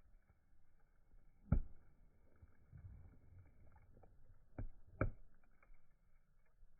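A few dull knocks over faint background noise: one about a second and a half in, then two close together near five seconds, with softer bumps between.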